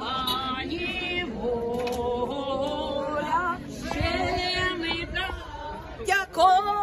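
A group of men and women singing a Ukrainian song together, with long held notes. Near the end a louder voice rises sharply above the singing.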